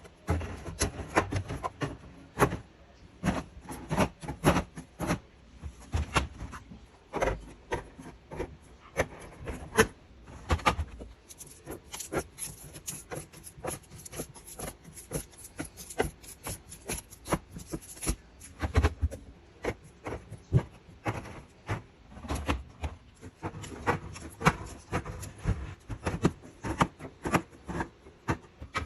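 Drink containers and packaging being handled and set down, as when restocking a fridge: a steady stream of irregular clicks, taps and light knocks, with rubbing and scraping between them.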